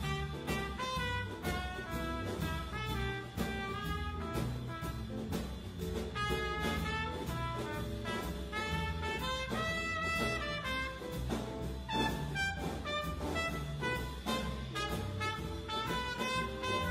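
Jazz trumpet solo over a rhythm section of guitar, electric bass and drums.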